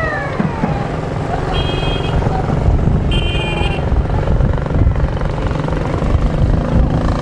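Several small step-through motorcycles puttering past at parade pace. Two short high beeps sound over them, about a second and a half and three seconds in.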